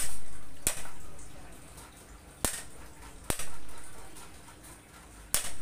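Heavy cleaver striking a round wooden chopping block: five sharp, irregularly spaced chops, each ringing out briefly.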